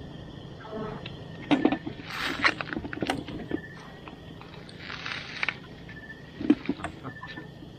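Rustling, scraping and scattered knocks from a gill net being handled and picked over beside a plastic bucket on river stones. The handling comes in irregular bursts, the loudest about a second and a half in and again near six and a half seconds.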